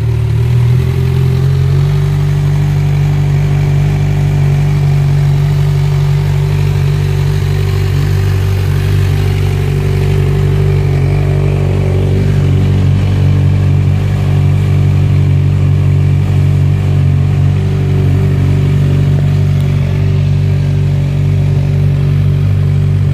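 Kawasaki Z1000's inline-four engine idling through a Vance & Hines Urban Brawler black exhaust. It settles into a steady, even idle within the first couple of seconds and holds there.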